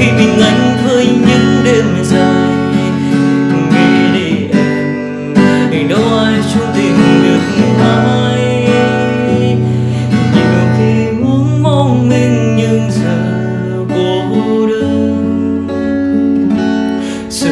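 Music: an acoustic guitar strummed under a man singing a slow pop ballad.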